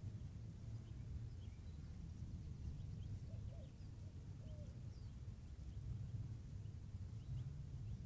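Gambel's quail chicks and adults at a water basin: many faint, short, high peeps scattered throughout, with a few soft lower calls a few seconds in, over a steady low rumble.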